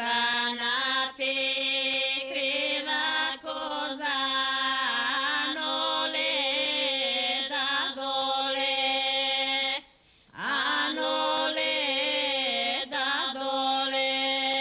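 A woman's voice singing a traditional Macedonian harvest (reaping) song, unaccompanied: long held notes with small ornaments. The song comes in two long phrases, with a short breath break a little before ten seconds in.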